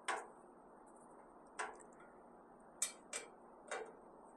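A Phillips screwdriver tightening screws into a metal smoker leg: about five short, sharp metal clicks at uneven intervals, two of them close together near the end.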